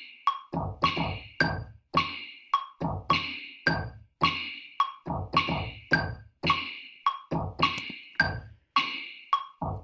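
Ableton Live's metronome clicking at about 106 beats a minute, with a drum pattern played over it on sampled drums made from a recorded voice. A deep kick alternates with a snare that has a short reverb tail cut off by a gate, the snare landing about once a second.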